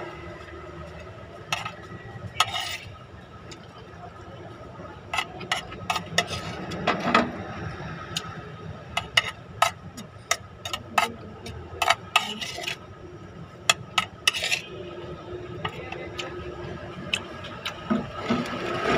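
Metal spoon clinking and scraping against a plate while eating: a long string of sharp, irregular clinks, thickest in the middle stretch.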